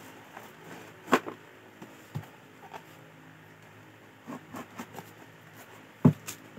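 Hands handling and turning a cardboard product box: scattered taps and knocks of fingers and box, the loudest about a second in and again near the end.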